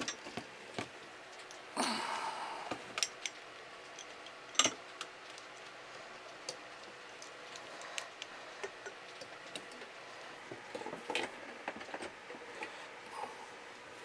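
Light metal ticks and clicks of a hand deburring tool working the freshly cut end of a copper refrigerant line, with a short scrape about two seconds in and a sharper click a little later. The burrs are being cleared so none get into the refrigerant.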